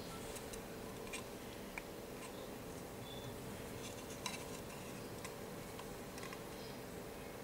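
Light, scattered clicks and taps of small plastic model-kit parts being handled and set down on a cutting mat, over a steady faint hum.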